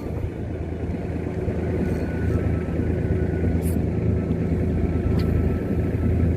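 A fishing boat's engine running steadily, a continuous low hum with a few light clicks over it.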